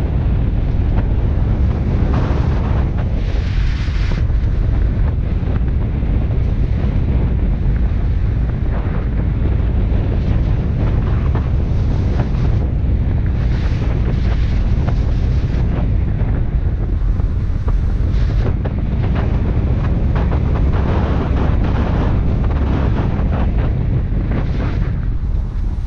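Wind buffeting the microphone of a camera mounted outside a moving car, over a steady low rumble from the 2003 Subaru Forester on the road. Gusts of higher hiss come and go a few times.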